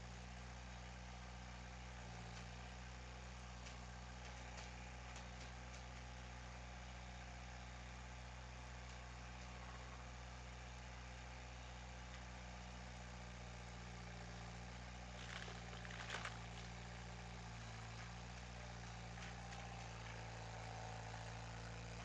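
Skid steer engine running at a steady idle, with a short burst of noise about fifteen seconds in.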